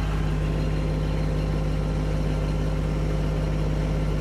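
Kubota BX2680 compact tractor's three-cylinder diesel engine running steadily at a raised idle while it warms up from a cold start, heard from inside the tractor's cab.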